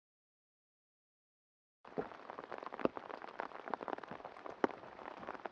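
Dead silence for nearly two seconds, then a dense crackling patter of many small sharp ticks and clicks.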